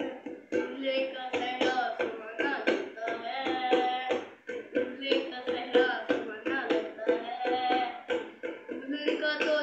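A child singing while drumming a quick rhythm with his fingers on an upturned stainless-steel bowl.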